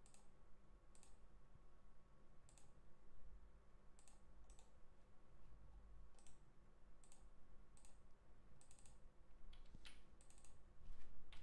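Computer mouse clicking while drawing in CAD software: single faint clicks every second or so, with a quicker run of several clicks near the end, over a faint steady electrical hum.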